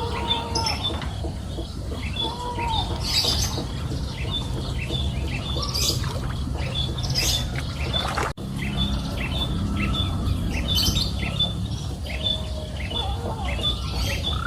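Outdoor chirping wildlife: a short high chirp repeating steadily about twice a second, with a few louder bird calls over it and a low steady rumble underneath. The sound drops out for an instant a little past halfway.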